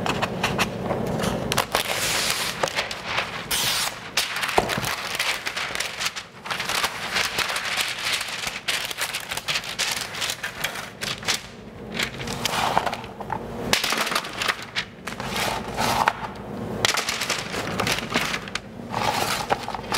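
Parchment paper being pulled from a dispenser box and pressed flat onto a metal sheet pan: continuous crinkling and crackling in uneven surges.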